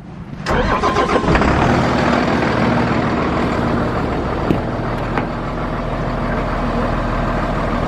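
The diesel engine of a 2009 Hino 268 box truck (a six-cylinder diesel) starts about half a second in and settles into a steady idle.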